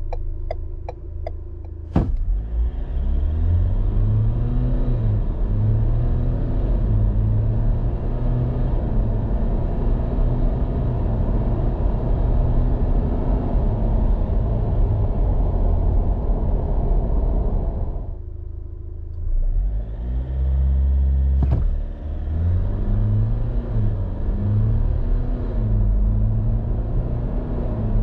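Ford Everest 2.0-litre twin-turbo four-cylinder diesel heard from inside the cabin. It idles with a few light ticks, then accelerates hard from a standstill, the revs climbing and dropping back as the 10-speed automatic shifts up through the gears. About 18 seconds in the sound breaks off, and a second full-throttle run follows with more upshifts.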